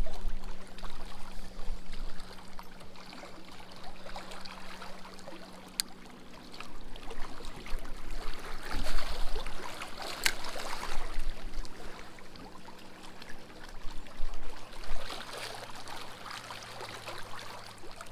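Small waves lapping and splashing against the rocks of a riprap shoreline, swelling and easing irregularly.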